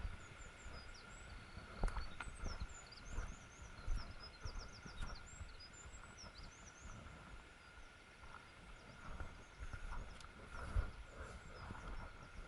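A small songbird singing rapid high chirps and trills, over the irregular thuds of a hiker's footsteps on the trail.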